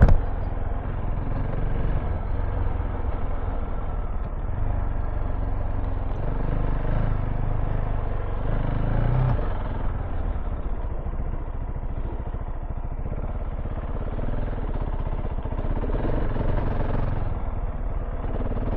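KTM 690 Enduro R's single-cylinder engine running steadily as the motorcycle is ridden off-road.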